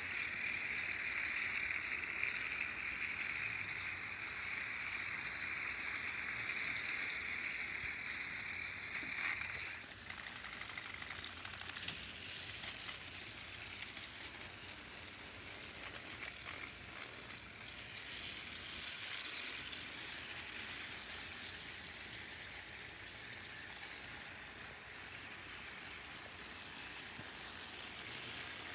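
Battery-powered Trackmaster toy train engines running on plastic track: a steady whirring of small gear motors with little clicks from the wheels. The loudest whir stops suddenly about ten seconds in, leaving a quieter running sound.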